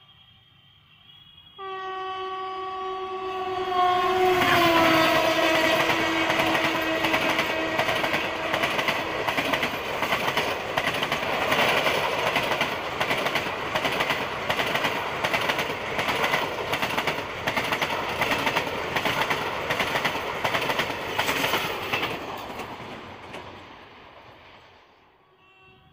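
WAP-4 electric locomotive's horn sounding one long held blast as it approaches, its pitch dropping as the locomotive passes. Then a long rake of ICF coaches goes by at speed, wheels clattering rhythmically over the rail joints, fading away as the train recedes.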